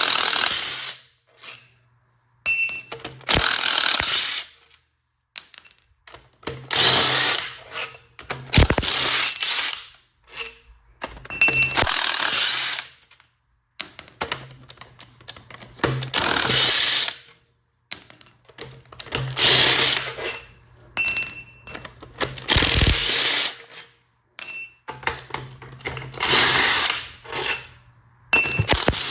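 Handheld power tool running in repeated runs of one to two seconds, a few seconds apart, with light metallic clinks between the runs; it is backing out the cylinder head bolts on a Ford 5.0 V8.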